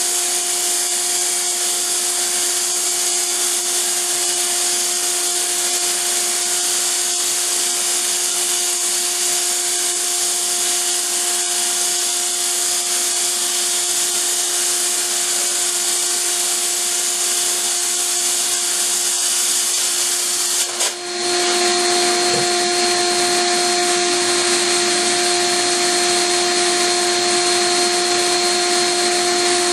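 Electric core drill running steadily, boring through a concrete floor: a constant motor whine over a strong hiss. About two-thirds of the way through the sound dips for a moment, then carries on.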